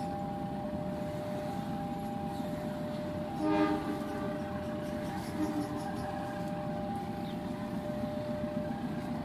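Train passing with a steady low rumble, while a steady two-note tone sounds throughout. About three and a half seconds in there is a short horn blast.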